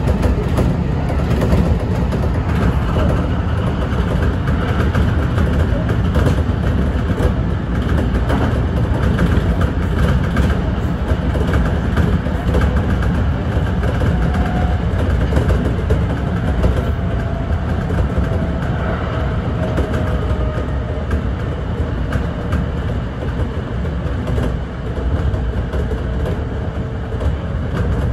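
Kintetsu electric local train running along the line, heard from inside the front cab: a steady rumble of wheels on rails, with a faint whine that slides down in pitch about halfway through.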